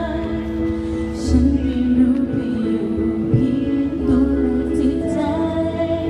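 A woman singing a slow song into a microphone over instrumental accompaniment with a bass line, amplified through stage speakers.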